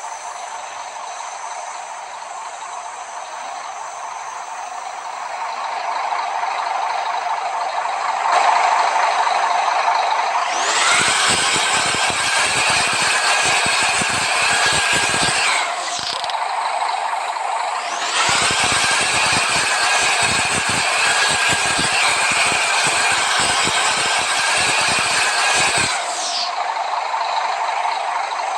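Bus engine running through a modified exhaust. It rises into two long louder stretches, one about ten seconds in and one about eighteen seconds in, each with a dense rattle underneath and easing off at the end.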